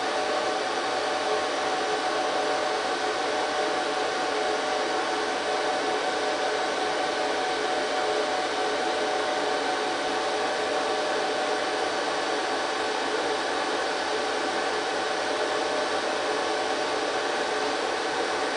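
Cooling fans of an HP ProLiant DL380 G3 server running steadily: an even rush of air with a constant whine made of several pitches.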